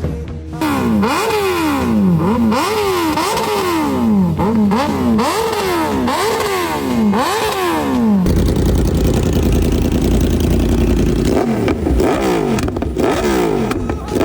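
Motorcycle exhaust being revved in quick throttle blips, each one rising sharply and falling away, more than one a second. About eight seconds in, the sound switches abruptly to a deeper, steady rumble, and revs start again near the end.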